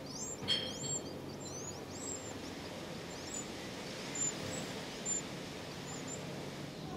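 Eurasian wren nestlings begging at the nest, with thin, high, rising chirps repeated several times a second over a steady low background hiss. A sharp click comes about half a second in.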